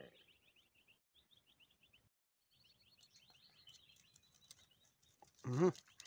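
A small bird singing faint, rapid chirping trills, about eight chirps a second, in two runs that end about four and a half seconds in. Near the end a brief, much louder low-pitched vocal call breaks in.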